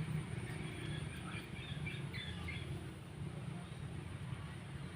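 A few short bird chirps about a second to two and a half seconds in, over a steady low rumble of outdoor background noise.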